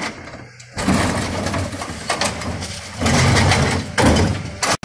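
Geesinknorba Combi-split bin lifter on a refuse truck emptying two wheelie bins into the hopper and lowering them: the hydraulics run while rubbish tumbles out and the bins clatter against the lifter. The noise starts up under a second in and is loudest in the last two seconds.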